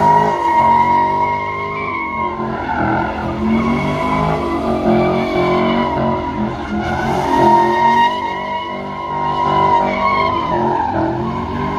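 A car doing a burnout: its tires squeal in a wavering, sustained screech while the engine revs up and down.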